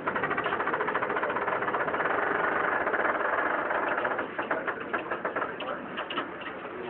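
Moving tram's running noise heard from inside the car: a dense, steady rattle for about four seconds, then thinning to scattered clicks and knocks.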